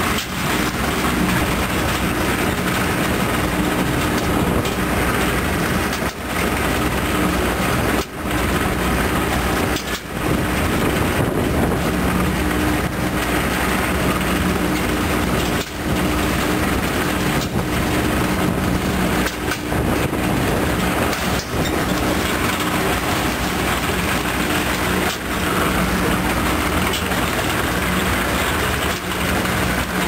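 Construction site hoist cage travelling on the outside of a tower, its drive running with a loud, steady mechanical noise and a low hum. The noise dips briefly every few seconds.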